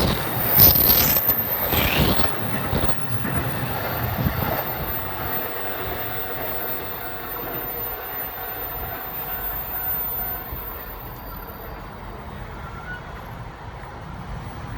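JR E231 and E233 series electric commuter trains passing over a level crossing: loud wheel and rail noise at first that fades steadily as the trains move away, with a thin high whine over it. In the middle a level crossing's warning bell rings in an even repeat.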